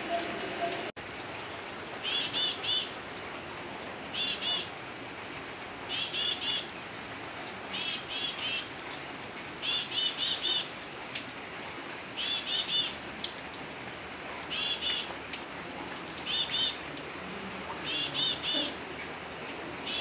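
Elegant tit singing: a short phrase of three to five quick, high, arching whistled notes, repeated about every two seconds over a steady background hiss.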